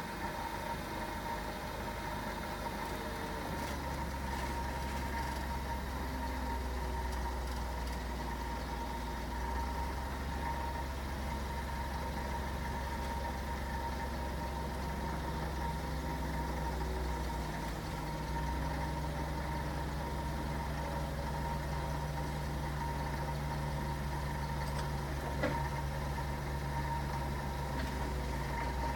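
LPG forklift engine running steadily under a lift load, with a steady high whine over it. The engine note gets louder a few seconds in and dips briefly past the middle; one sharp click near the end.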